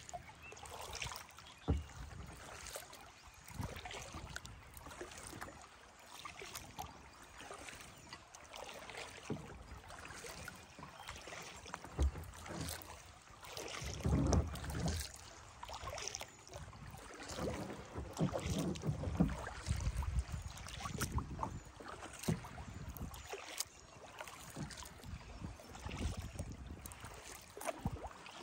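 Kayak being paddled on calm water: irregular paddle splashes and drips, with scattered light knocks and clicks.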